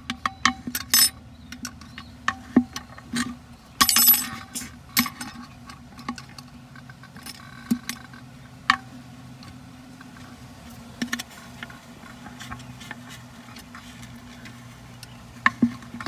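A screwdriver clicking, scraping and knocking against the plastic washer and brass insert inside a Hayward cartridge filter's centre tube as they are pushed into place: a quick run of sharp clicks with a rattling burst about four seconds in, then only a few scattered knocks, over a low steady hum.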